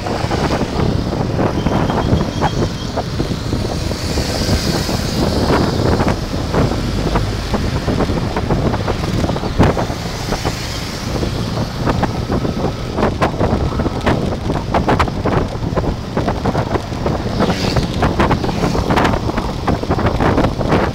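Wind buffeting the microphone of a camera on a moving motorcycle, in irregular gusts over steady road noise.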